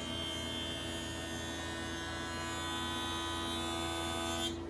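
Jointer face-jointing a maple board: the spinning cutterhead cuts with a steady, many-toned whine over the motor's hum. Near the end the cutting sound cuts off suddenly as the board clears the knives, leaving the machine running.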